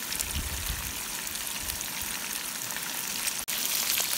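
Fish frying in oil in a frying pan: a steady sizzle with small crackles, cutting out for an instant about three and a half seconds in and coming back a little louder.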